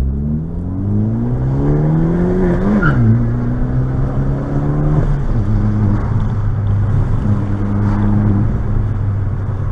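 Sports car's engine and exhaust heard through an open window, pulling hard up a twisty road. The revs climb, drop sharply at a gear change about three seconds in, climb again briefly, then fall about five seconds in and hold a steady drone.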